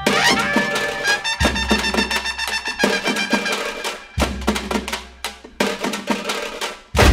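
Background music with drums and percussion, many sharp hits over sustained notes.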